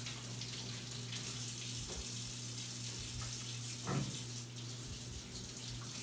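Kitchen tap running steadily into a stainless steel sink, with a brief bump about four seconds in.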